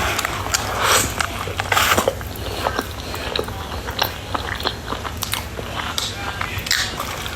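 Close-miked eating: bites and crunchy chewing, a string of irregular crisp crunches, the loudest about one and two seconds in.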